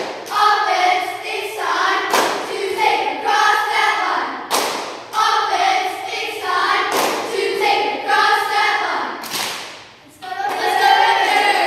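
A group of girls chanting a cheer in unison, punctuated by a sharp clap or stomp beat about every two and a half seconds. The chant breaks off briefly near the end, then starts up again loudly.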